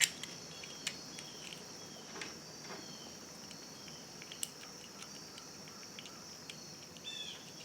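Faint, scattered clicks and small taps as a small screw is put back into a soldering gun's plastic housing and tightened by hand, over a steady faint high-pitched hiss.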